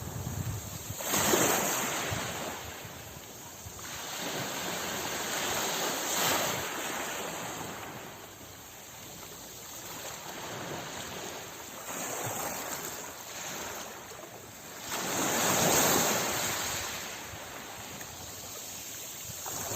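Ocean waves breaking and washing up on a beach, the surf swelling and fading in several surges, with the loudest near the end.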